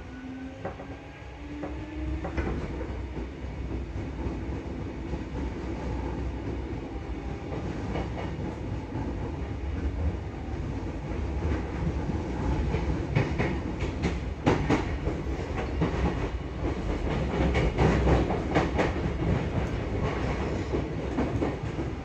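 Odakyu 8000 series field-chopper commuter train heard from inside the car: the traction motor tone rises in pitch over the first couple of seconds as the train picks up speed, then a steady running rumble with wheel clicks over rail joints, which grow louder and more frequent after the middle.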